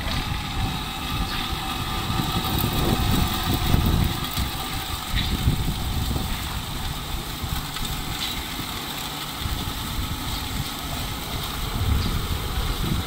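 Electric soy milk grinder running while soaked soybeans are fed into its hopper and ground into slurry: a steady motor tone over an uneven low rumble.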